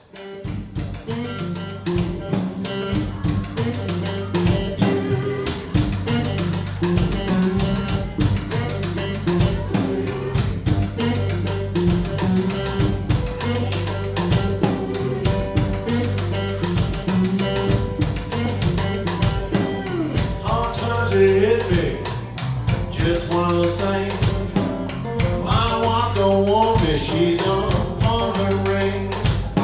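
Live blues band playing: electric guitars, bass and a drum kit keeping a steady beat, starting right at the beginning. A lead line with bending notes comes in about twenty seconds in.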